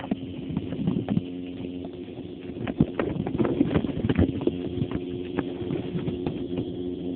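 Fish-tank water heard by a phone sealed in a ziplock bag under the surface: a steady hum with many irregular clicks and knocks, busiest about three to four and a half seconds in.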